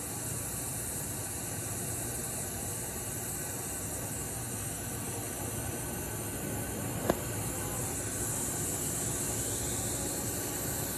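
Welding arc on a 1-inch stainless 316L socket weld, a steady even hiss, with one sharp click about seven seconds in.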